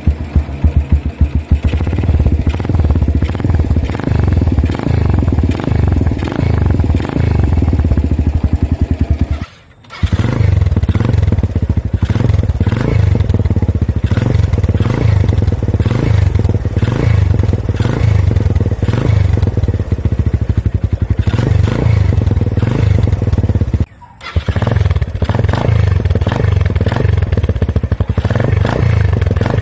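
Suzuki Thunder 125's single-cylinder engine running through an Apido aftermarket pipe with its silencer insert removed, leaving only the tip and muffler: a bassy exhaust note with a little crackle, in rapid even pulses. The sound cuts out briefly twice, near 10 s and near 24 s.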